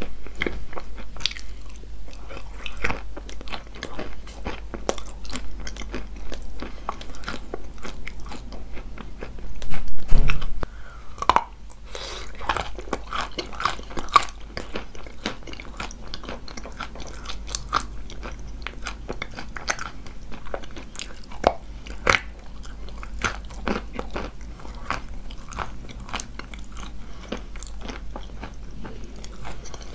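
Close-up biting and chewing of wet chalk coated with clay paste: a dense run of crisp crunches and crackles, with a louder burst about ten seconds in.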